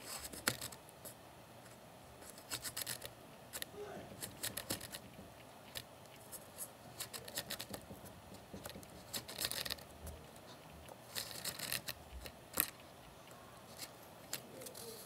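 Small wooden model trebuchet's winch being hand-cranked to draw the throwing arm down, with irregular clusters of quick clicks and scraping of wood and string.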